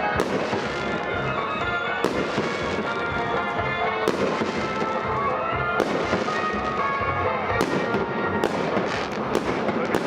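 Fireworks display: a steady string of bangs and crackles from bursting shells, over music with held notes that change every couple of seconds.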